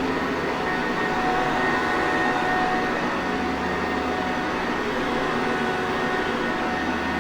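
Sanitaire Perfect vacuum cleaner running steadily: a continuous motor rush with a couple of faint, steady whining tones on top.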